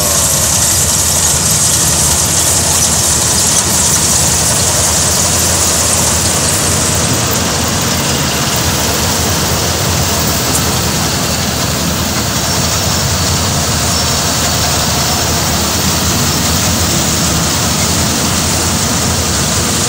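Tanikaya Megatron HT-88 rice combine harvester running steadily as it cuts and threshes rice, its engine and threshing works making a dense, steady mechanical noise.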